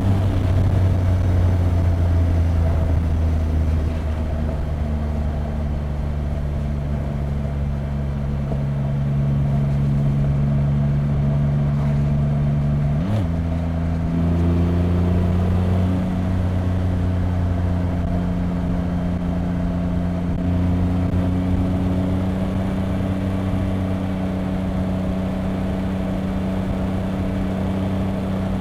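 2025 Triumph Rocket 3 R Storm's 2.5-litre inline-three running on stock exhaust, under way at a steady pace with the revs creeping slowly up. About halfway through the revs climb quickly and drop in one gear change, then the engine settles again and slowly gains revs.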